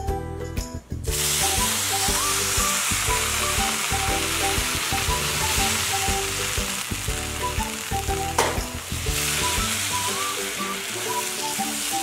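Cold milk poured into a hot pan of ghee-roasted desiccated coconut, sizzling loudly from about a second in as it hits the hot pan, then stirred in with a spatula. A single sharp knock about eight seconds in. Background music throughout.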